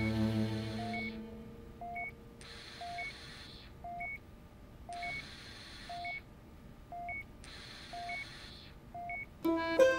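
Bedside patient monitor beeping steadily about once a second, each beep a low tone followed quickly by a higher one. Behind it comes a breathy hiss of breathing through an oxygen mask, about once every two and a half seconds. Cello music fades out at the start and music swells back in near the end.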